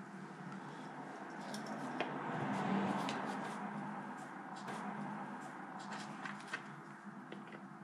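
Quiet handling noise from gloved hands fitting a diaphragm and top cover onto a motorcycle carburetor bank: scattered small clicks of metal and plastic parts and some rustling, over a steady low hum.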